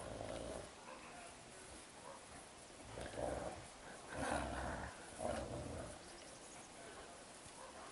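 Wolves growling in several short bouts as they tussle.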